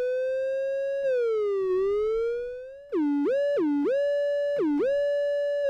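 Octave-Plateau Kitten II analogue monophonic synthesizer playing one bright, buzzy note line with glide (portamento) turned up, so each note slides smoothly into the next. Slow swoops up and down over the first few seconds, then about three quick drops to a lower note that glide back up.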